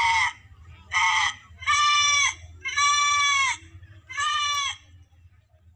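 A boy imitating a goat's bleat into a handheld microphone: five high, wavering bleats, each under a second long.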